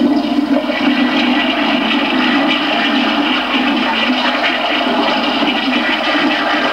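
Audience applauding steadily, heard through a worn, water-damaged video tape recording.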